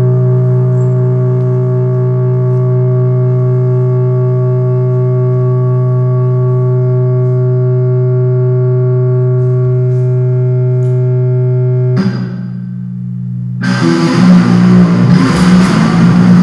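Music: a sustained droning chord of many held tones that cuts off abruptly about twelve seconds in. After a brief lull, a loud, dense wash of noisy, distorted sound with drum-like hits comes in near the end.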